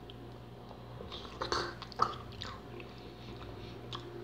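A man eating pasta with a fork: biting and chewing sounds, with a sharp click about two seconds in and a smaller one near the end, over a steady low hum.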